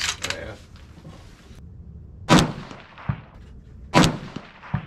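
Two rifle shots from a Ruger Precision Rifle in 6.5 Creedmoor, about two seconds in and about four seconds in, roughly 1.7 seconds apart. Each is a sharp crack with a ringing tail, and a few light clicks fall between them.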